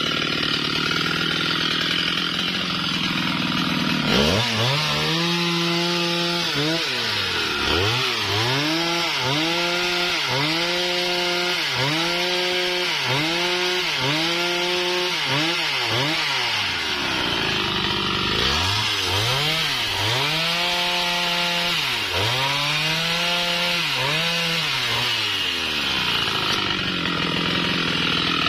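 Husqvarna 395XP two-stroke chainsaw running at high revs and cutting through a sengon log. From about four seconds in, the engine note dips and climbs again about once a second, with a short steadier stretch midway, until near the end.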